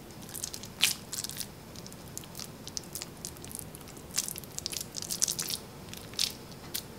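Bare hands squeezing and pressing a crumbly veggie-ground and breadcrumb mixture into a burger patty, close up: irregular short, sharp crackles as the mixture is compacted.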